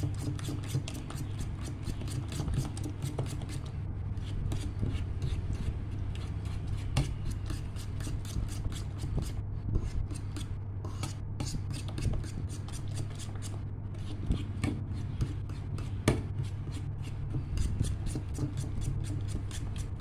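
Utensil stirring batter of mashed banana and egg in a ceramic bowl, scraping and clicking against the bowl in quick, regular strokes, with a steady low hum underneath.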